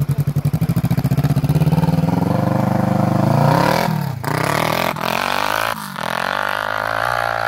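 Kawasaki ER-6 parallel-twin engine swapped into a Yamaha quad, pulling away from low revs and accelerating hard. The revs climb, drop sharply at gear changes about four, five and six seconds in, and climb again.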